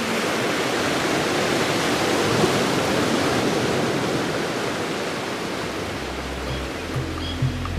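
A steady rushing wash of water noise from a piece of music composed from natural ocean sounds. Low sustained notes come in about six seconds in.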